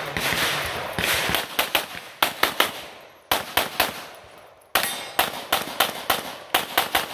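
Rapid pistol shots fired in quick strings, often several a second, with two short breaks near the middle, as in a practical-shooting stage run.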